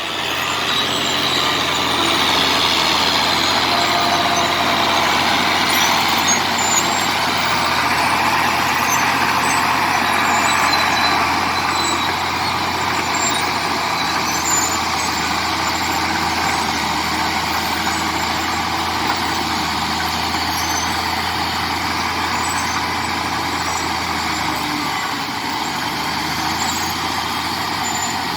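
Komatsu D70LE crawler bulldozer working steadily, its diesel engine running on without pause while it pushes clay, with faint clinks over the noise.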